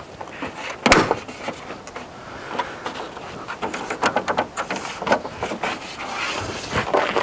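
Plastic front grille of a Range Rover Sport L320 being pressed into place, its tabs clipping into the bodywork: a sharp snap about a second in, then a run of small clicks, knocks and plastic rubbing.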